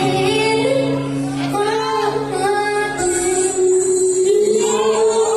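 Recorded pop music with a high voice singing the melody, the backing track of a dance crew's routine; held low notes sound under the voice for about the first three seconds.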